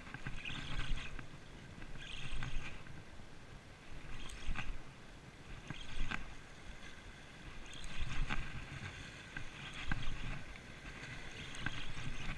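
Sea water washing and splashing against shoreline rocks, coming in surges every second or two with crackles of spray.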